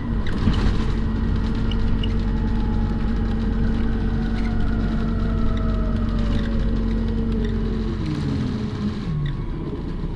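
City bus engine running, heard from on board while the bus drives. Its note holds steady, then slides down in pitch about eight seconds in as the bus slows.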